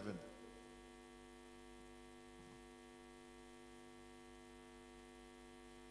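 Near silence with a faint steady electrical hum, mains hum from the sound system.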